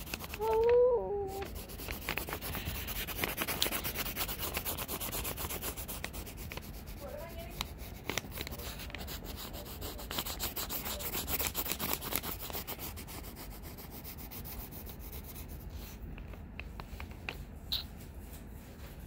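Pencil lead scratching on lined notebook paper in quick, repeated short strokes as fur is shaded in. The scratching is busiest in the first two-thirds and becomes sparser and lighter near the end.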